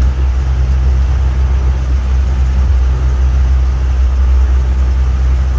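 Birchwood 22 river cruiser's engine running steadily under way, a loud, even low drone heard from inside the boat's cabin.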